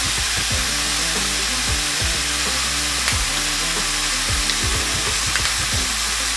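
Thinly sliced beef frying in olive oil in a stainless steel sauté pan, a steady sizzle, with soft background music underneath.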